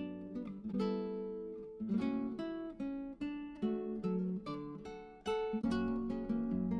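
Background music: acoustic guitar picked and strummed in a steady run of plucked notes.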